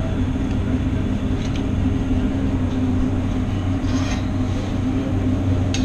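Steady mechanical drone of a commercial kitchen's exhaust hood fan running, with a few faint clicks and clatters of utensils.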